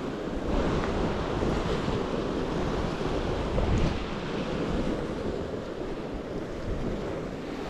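Sea waves washing onto the shore, with wind buffeting the microphone: a steady rush of noise without a break.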